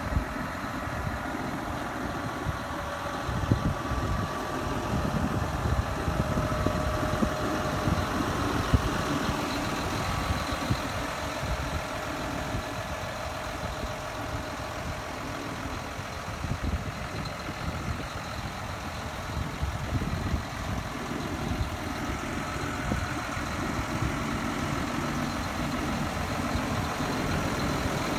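John Deere 6170R tractor's 6.8-litre six-cylinder diesel engine idling steadily.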